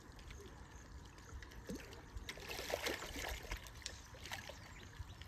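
A large hooked rohu carp splashing in shallow water as it is brought in to the bank by hand, with one brief flurry of splashes about halfway through, over a low steady lapping of water.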